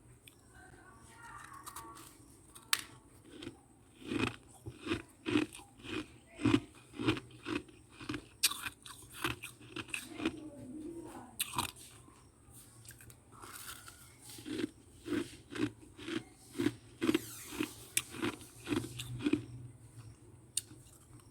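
Close-up crunching of freezer frost chunks being bitten and chewed, with a few sharp bites and two runs of steady chewing crunches at about two a second, separated by a short pause.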